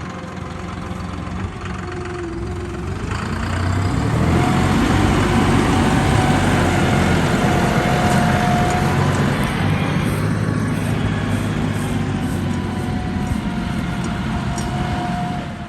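A farm vehicle's engine running steadily, getting louder about four seconds in, with a thin whine now and then.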